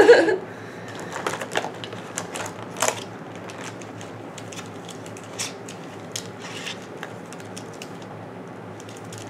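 Scattered clicks and crackles of pen packaging being handled, busiest in the first three seconds and then a few sparse ticks.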